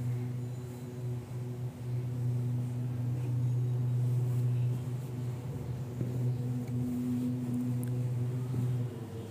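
A steady low mechanical hum, like a small motor running, that stops near the end, with faint scraping of a spoon stirring vegetables in a frying pan.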